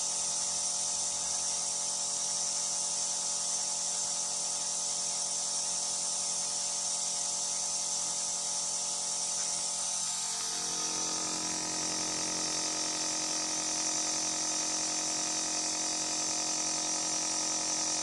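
Compressor nebulizer machine running: a steady motor hum with a hiss of air and medicated mist, its tone shifting about ten seconds in.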